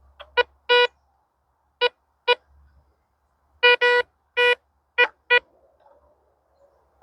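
Handheld metal detector giving about ten short beeps at one steady pitch, in irregular groups, some a little longer. It is picking up metal embedded in an oak log.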